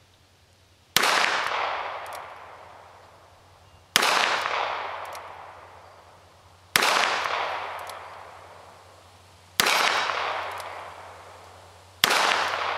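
Five shots from a Ruger SP101 .38 Special/.357 revolver loaded with .38 Special, roughly one every three seconds. Each sharp report trails off into an echo lasting about two seconds.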